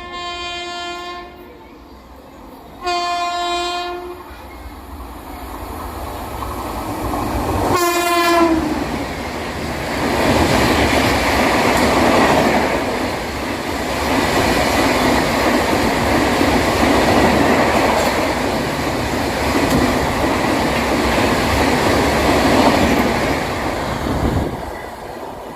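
Express train passing at speed through a station: the locomotive horn sounds three blasts, the last short one dropping in pitch as the locomotive goes by, then the coaches rush past with a loud steady rumble that falls away near the end.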